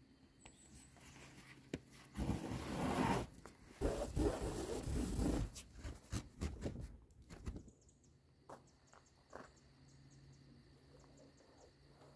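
Reinforced poly tarp being handled and roped off: two bursts of plastic rustling and scraping about two and four seconds in, then scattered light clicks and taps.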